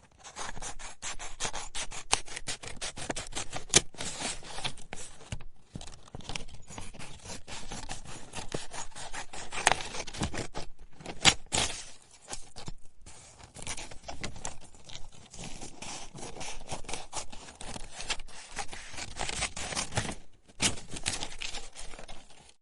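Scissors cutting paper, a rapid run of crisp snips with a few short pauses between cuts.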